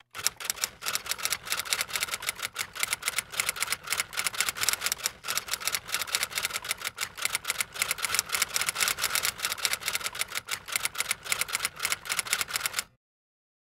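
Rapid typing: keys clacking several times a second in a continuous run that stops abruptly near the end.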